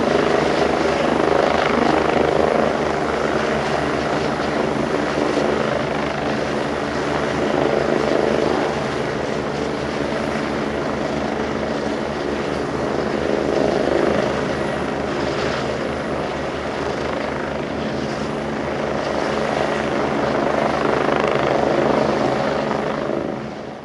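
Rescue helicopter running steadily: an even, rapid beat of the rotor blades under a steady engine whine. It fades out right at the end.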